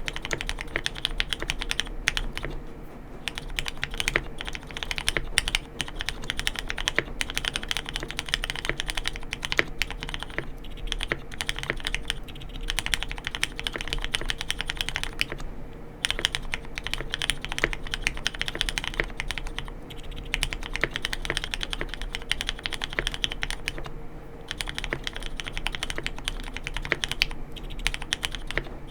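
Fast continuous typing on a Mode Sonnet custom mechanical keyboard with lubed, filmed Hyperglide Black linear switches and clear ABS keycaps, the keystrokes coming in quick runs broken by brief pauses.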